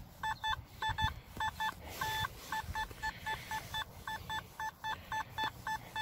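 Nokta Makro Simplex metal detector giving a quick run of short target beeps, mostly in pairs, with one longer tone about two seconds in, as the search coil is swept over the ground. The responses are erratic, which fits the 'weird numbers' the detector is showing on this farm ground.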